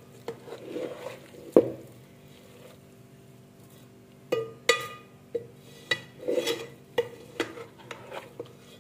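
A spoon scraping and knocking against an aluminium cooking pot while stirring cauliflower, each knock ringing briefly. A few knocks come in the first two seconds, then a pause, then a quicker run of knocks and scrapes from about four seconds in.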